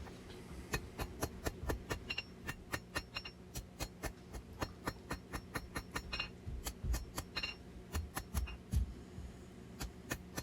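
Hammer blows on hot steel over an anvil, about three a second, some ringing briefly: drawing out a knife's tang to a taper by hand. A low steady hum lies under the blows.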